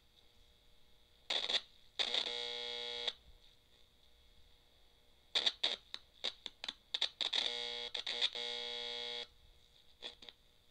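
Circuit-bent clock radio's speaker putting out glitchy electronic sound effects as jumper leads are touched across its circuit board. A short buzz about a second in, then a steady buzzy tone for about a second. After a pause comes a run of rapid clicks and chirps, and another buzzy tone of about two seconds that stops suddenly.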